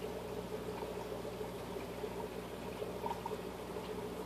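Aquarium filter running: a steady trickle of water with a low, even hum underneath.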